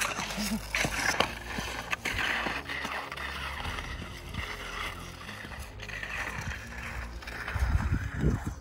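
Touring skis on climbing skins sliding and scraping over snow in steady strides, with a low rumble of wind on the microphone.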